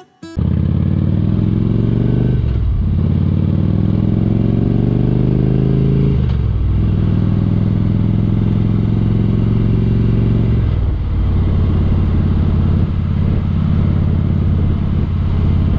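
Harley-Davidson Road Glide's V-twin engine heard from the rider's seat, pulling away with its pitch rising, dropping back twice as it shifts up, then running steadily at cruising speed. The engine note falls about eleven seconds in.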